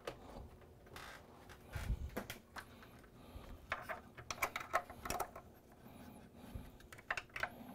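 Scattered light clicks and taps of a cable and clip being worked into a signal generator's metal chassis by hand, in small clusters a few seconds apart.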